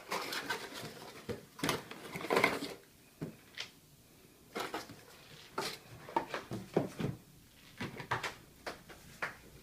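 Unpacking noises: irregular rustles, clicks and knocks of cardboard boxes and packed parts being handled, with a quieter pause near the middle.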